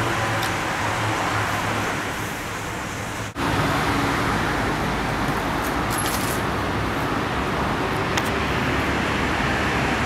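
Street ambience: a steady wash of traffic noise on a city street, cut off for a moment about three seconds in, with a few faint ticks later on.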